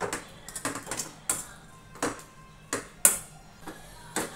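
Metal potato masher pressing soft cooked tomatoes in a stainless steel pan, giving a string of sharp, uneven clinks as it strikes the pan bottom.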